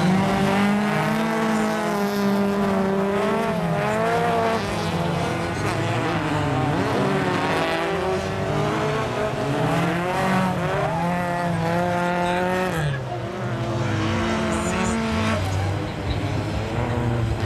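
Several folkrace cars racing on a gravel track. Their engines rev up and down, the pitch rising and falling as they accelerate and shift gears.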